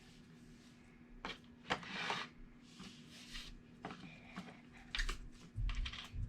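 Slime being squeezed and worked in the hands, giving a scattering of soft, short squelches and crackles, with a few dull low thumps near the end.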